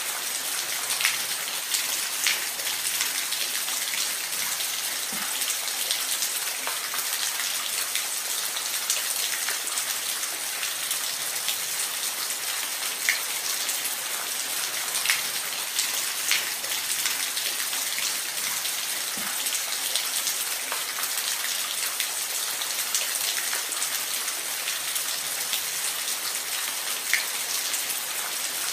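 Steady rain falling in a forest: an even hiss of rainfall with scattered louder drops ticking close by.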